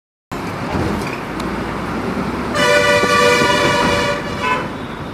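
Engine and road noise inside a moving bus, with a bus horn blowing one long steady blast of about two seconds midway through.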